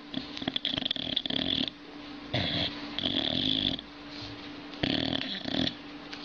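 A sleeping, dreaming dog snoring: three noisy breaths a couple of seconds apart.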